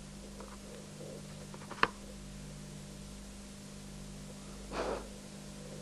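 Small handling sounds of fingers working rubber pieces on a wooden board: a sharp tick a little under two seconds in and a brief scrape near the end, over a steady low hum and hiss.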